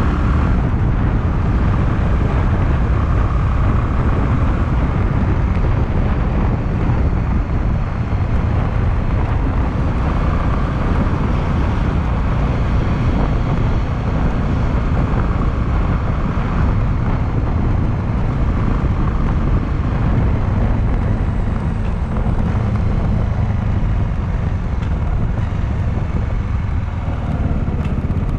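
Honda Clubman motorcycle's engine running steadily, heard from a rider-mounted camera mic, with wind noise mixed in.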